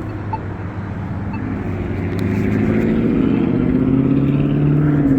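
A motor vehicle's engine in passing road traffic, getting louder with a slightly rising engine note as it approaches and accelerates, then holding steady.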